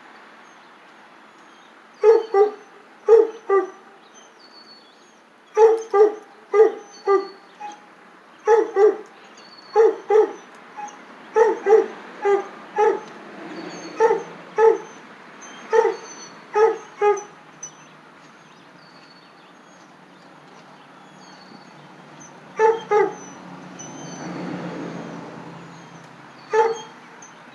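A dog barking in short runs of two to five barks for about fifteen seconds, then a pause and a few more barks near the end. Faint, high baby-chick peeping carries on underneath.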